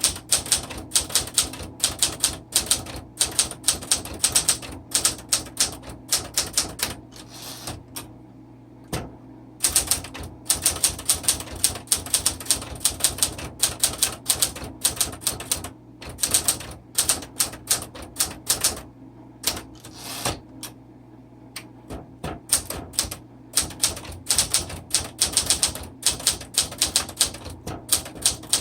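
Smith Corona Classic 12 manual typewriter being typed on: quick runs of sharp key and typebar strikes, broken by two short pauses, about eight and about twenty-one seconds in.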